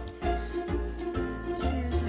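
Background music with a steady beat and bright, tinkly notes.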